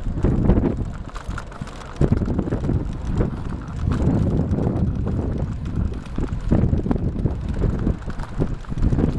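Wind buffeting the microphone of a camera riding along on a moving bicycle: an uneven low rumble, broken by scattered knocks and rattles from the bike over the path.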